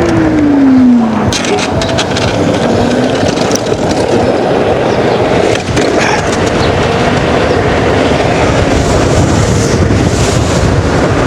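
Steady loud rush of wind buffeting the microphone while riding an electric unicycle at speed. A single falling tone glides down during the first second.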